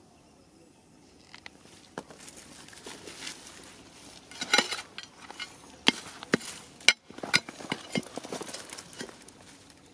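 Dry grass stems and twigs rustling and crackling, with several sharp clicks that are loudest around the middle.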